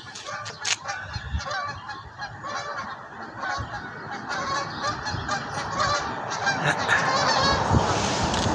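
A flock of geese honking, many short calls overlapping. A rushing noise swells up under the calls in the second half.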